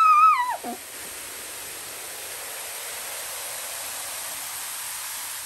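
A high voice calls out briefly at the start. Then vinegar fizzes on baking soda: a steady hiss of carbon dioxide bubbles foaming up.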